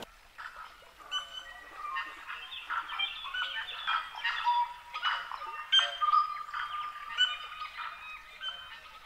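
A dense chorus of New Zealand forest birds singing: many overlapping whistled notes and short chirps, some held briefly at a steady pitch.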